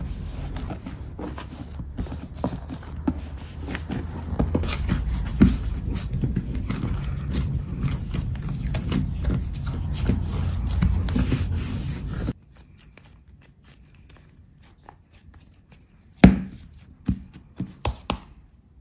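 Hands kneading soft pizza dough: dense, irregular sticky pressing and slapping sounds over a low hum. After about twelve seconds it drops abruptly to quiet, and a few sharp knocks follow near the end.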